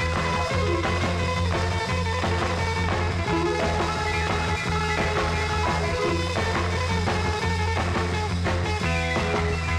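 Background rock music with a steady bass line.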